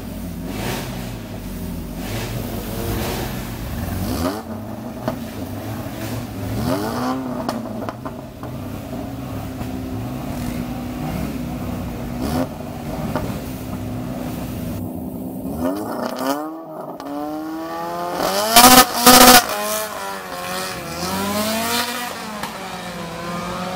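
Alpine A110 Berlinette's four-cylinder engine being blipped repeatedly while held on the start line, then launching about two-thirds of the way in and accelerating hard, its pitch rising through the gears. Two very loud short blasts come just after the launch.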